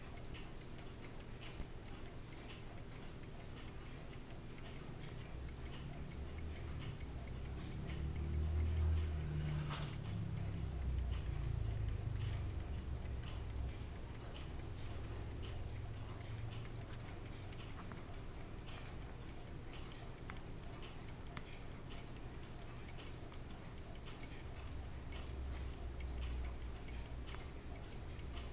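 The movement of a 1696 William Bell verge fusee pocket watch ticking in a fast, even run of light ticks. A low rumble swells and fades between about eight and thirteen seconds in.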